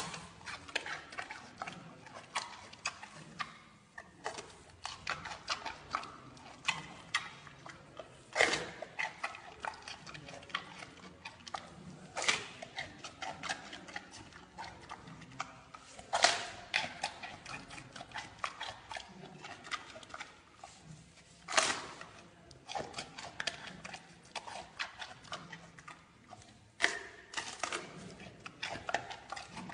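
Giant panda chewing a bamboo shoot: a fast, irregular run of crunching clicks, with about five louder crunches spread through.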